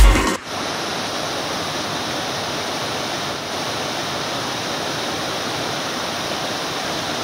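Whitewater river rapids rushing steadily over boulders. A beat-driven music track cuts off about half a second in.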